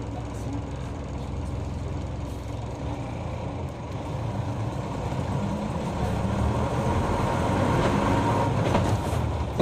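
Diesel engine of a city route bus running, heard from inside the bus with road and cabin noise. The sound grows louder from about four seconds in.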